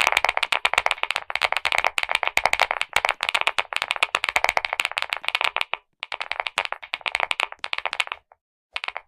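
Clicky mechanical keyboard keys pressed in a rapid, dense flurry, breaking into short separate bursts of clicks after about six seconds.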